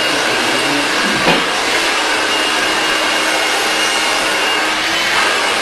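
Handheld hair dryer blowing steadily at high power, with a thin steady motor whine under the rush of air. A brief knock about a second in.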